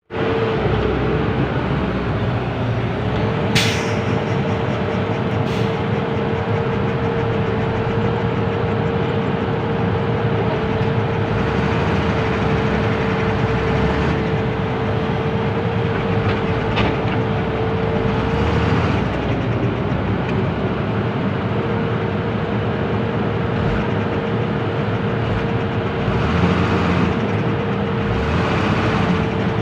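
Loaded dump truck's diesel engine running steadily with a constant whine, while the truck is stuck in soft dirt. A short sharp hiss about three and a half seconds in.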